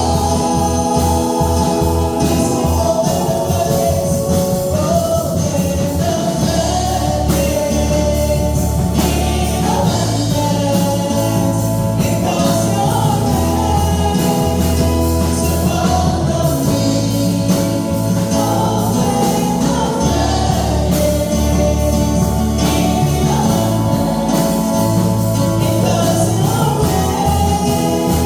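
Gospel music in a church service: voices singing a slow melody over instruments, with long held bass notes underneath.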